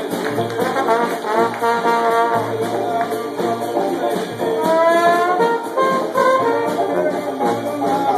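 Small Dixieland jazz band playing live: trombone out front over tenor saxophone, strummed banjo and a sousaphone bass line that pulses on each beat. A run of upward-gliding notes comes about halfway through.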